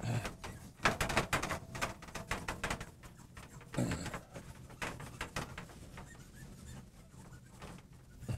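Cloth wiping across a glass lightboard to erase writing: rubbing in many quick back-and-forth strokes that grow sparser and fainter toward the end.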